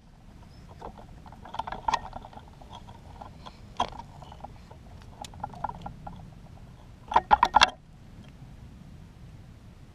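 Wooden sticks and cord of a net bird trap being handled and adjusted: scattered light clicks and knocks, with a quick run of four or five louder sharp clicks about seven seconds in.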